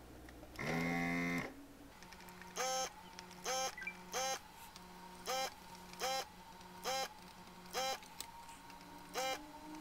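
Vacuum desoldering gun's pump buzzing in short bursts as solder is sucked off the stepper motor pins: one longer buzz about a second in, then eight quick buzzes about once a second, each rising in pitch as it starts, over a faint steady hum.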